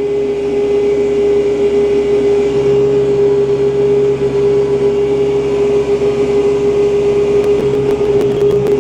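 Kubota tractor's diesel engine running steadily at about 2,000 rpm under load while pulling a box scraper through dirt and grass, with a strong steady whine over the engine. A lower hum joins a couple of seconds in, and quick sharp ticks start near the end.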